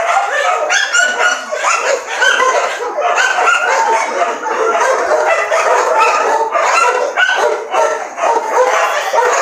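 A pack of dogs barking and yipping at once, a continuous din of overlapping barks with no pause.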